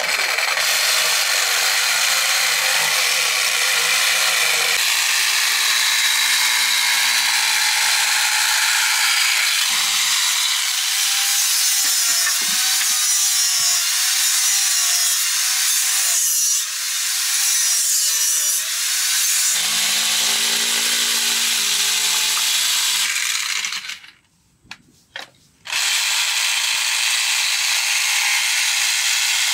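Power tools running under load: an electric jigsaw cutting through a wooden board, then an angle grinder grinding a coconut shell. The noise is loud and continuous, its motor pitch shifts as the cut changes, and there is a short break near the end.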